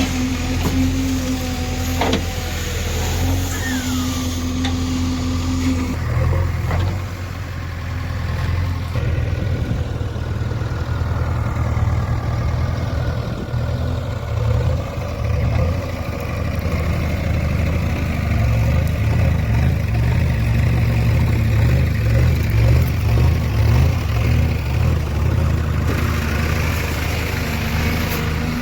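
JCB 3DX backhoe loader's diesel engine running steadily as the machine drives, a continuous low drone that pulses more strongly in the second half.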